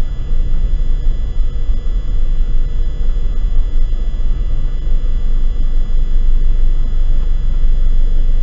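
Steady low rumble of a car driving slowly, heard from inside the cabin through a dashcam microphone.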